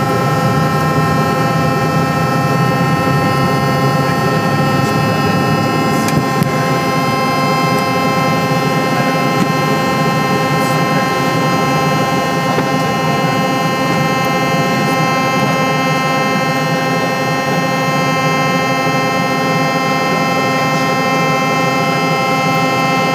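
Cabin noise of a Hawker 400 business jet's twin rear-mounted turbofans at takeoff thrust: a steady, loud whine of many high tones over a roar. A low rumble eases about six seconds in as the wheels leave the runway, and the engines run on steadily through the climb-out.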